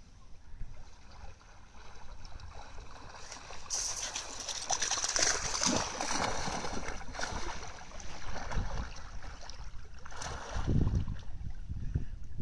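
Water splashing and sloshing as two dogs paddle and wade through shallow water. The splashing gets louder about four seconds in.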